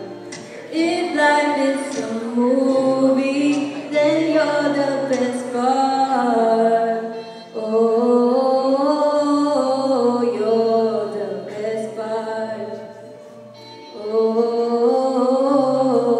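A young woman singing a song into a handheld microphone, amplified through a PA speaker. She sings in long held phrases, with short breaks about halfway through and again a little after three quarters of the way.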